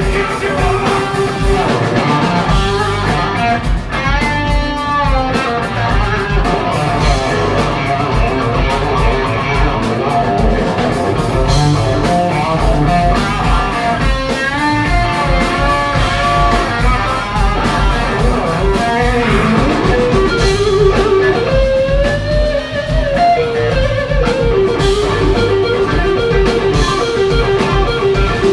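Live blues-rock band playing: electric guitar lines with bent notes over bass guitar and drum kit.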